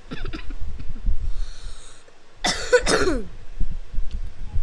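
A person coughing, with the loudest, harshest cough about two and a half seconds in, over low thuds.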